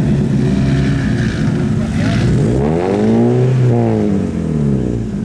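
Car engine idling, then revved once about two and a half seconds in, the pitch climbing and dropping back to idle.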